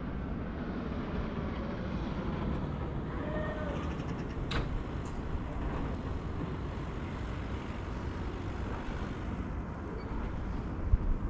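Steady low rumble of outdoor city ambience, with one sharp click about four and a half seconds in.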